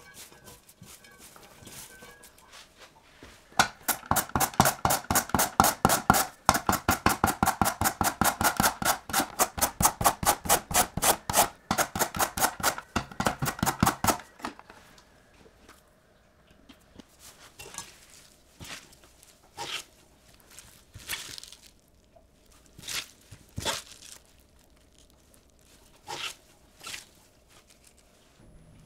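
Carrot being julienned on a mandoline slicer: quick, even rasping strokes for about ten seconds, the loudest thing here. Soft rustling of shredded cabbage comes before it, and a few scattered single scrapes follow.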